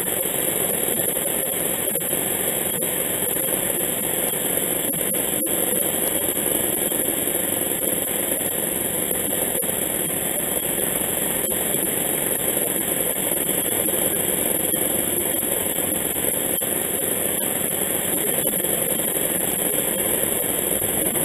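Makita reciprocating saw running steadily, its blade cutting through a round log.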